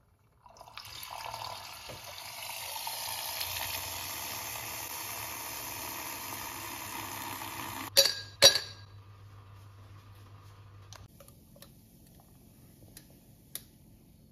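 Electric jug milk frother running, a steady whirring fizz as it whisks milk, stopping about eight seconds in. Two sharp clinks follow, half a second apart, from ice cubes dropped into a drinking glass, then a few faint ticks.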